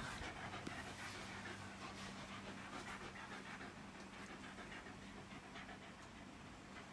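Shiba Inu panting softly and quickly with its mouth open, restless and agitated by thunder.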